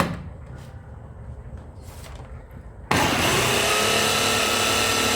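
Electric blender switched on about three seconds in and running steadily with a motor whine, blending pomegranate juice with flour. Before it starts, a few light clicks and knocks.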